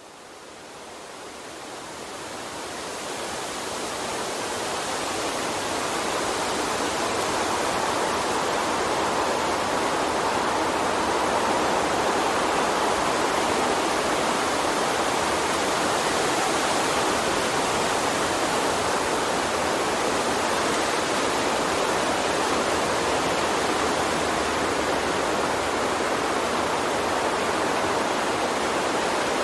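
Steady rushing of a flowing water stream. It swells up from quiet over the first several seconds, then holds even.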